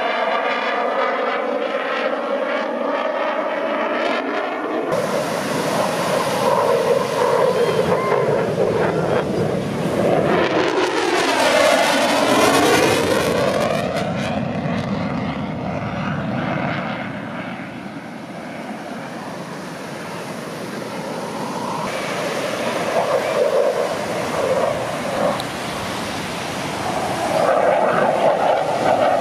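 Airplane engine passing overhead; its drone grows louder towards the middle and the pitch drops as it goes by, then fades to a steady distant drone.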